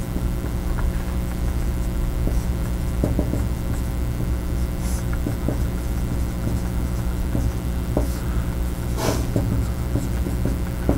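Steady low room hum, with a few faint short scratches and taps of a marker writing on a whiteboard; the clearest comes near the end.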